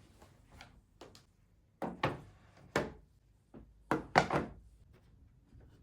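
Hard knocks and clunks from picture frames being handled and opened, with a few sharp thunks bunched in the middle and light clicks between.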